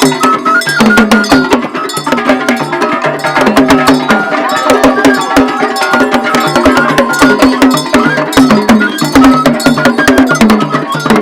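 Traditional Idoma drums played in a fast, continuous rhythm, with several drums at different pitches and a bright, high-pitched struck part sounding over them.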